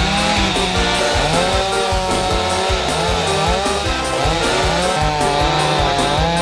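Music with a steady beat playing over a chainsaw running, cutting wood.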